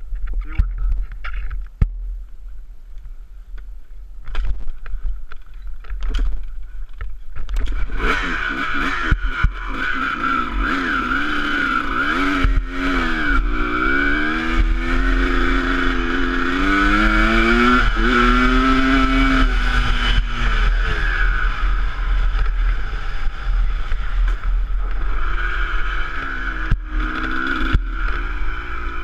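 Enduro motorcycle engine revving up and down off-road, its pitch rising and falling in repeated waves. The first several seconds hold only a low rumble and scattered knocks, and the engine comes in about eight seconds in.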